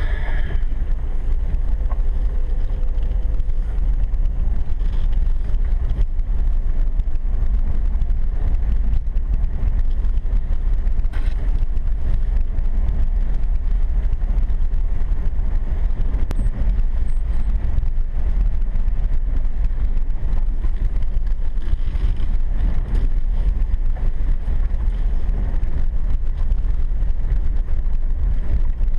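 Ford F-150 pickup driving on a rough dirt road, heard from inside the cab: a steady low rumble of engine and tyres, with a few sharp knocks.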